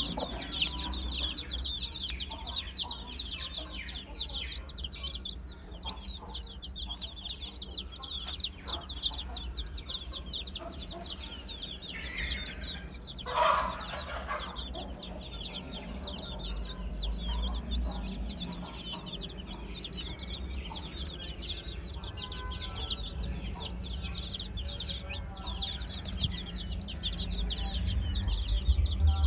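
A brood of Aseel chicks peeping without a break: a dense stream of high, short, downward-sliding chirps. A short, louder sound comes about halfway through.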